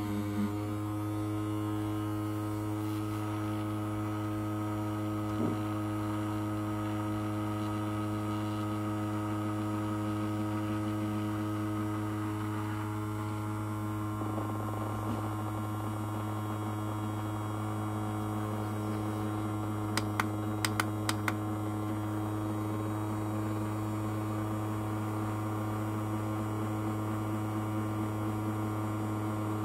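Ultrasonic cleaner running with coins in its water bath: a steady electric hum with a strong low buzz and overtones above it. A quick run of light clicks comes about two-thirds of the way through.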